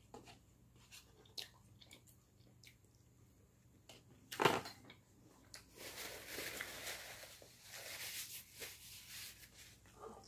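Knife and fork clicking and scraping on a plate, then set down with a sharp clatter about four and a half seconds in. After that a paper towel rustles for several seconds as it is used to wipe mouth and hands.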